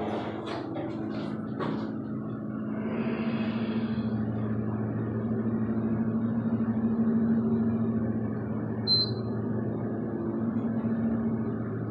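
KONE hydraulic elevator running: a few clicks in the first two seconds, then a steady machine hum that grows louder about four seconds in as the car travels. A short high beep sounds about nine seconds in.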